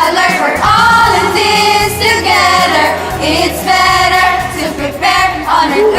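A song: several voices singing together over a musical backing track.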